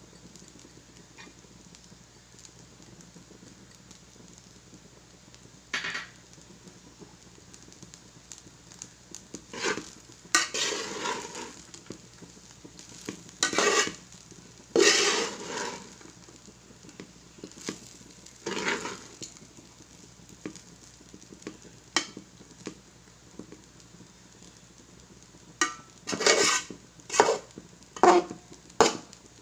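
A cooking utensil scraping and stirring fried rice in a pan, in irregular strokes that start about ten seconds in and come quickly near the end, over a faint steady sizzle.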